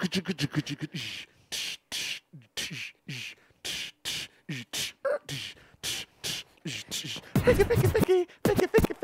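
Beatboxing: a voice imitating a drum beat with short kick thumps and hissing snare and hi-hat sounds, and a low buzzing bass sound about seven and a half seconds in.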